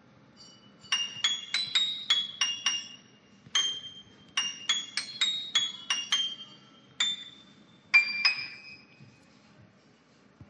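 Background music: a melody of high, bell-like chiming notes in short quick runs with pauses between them, dying away near the end.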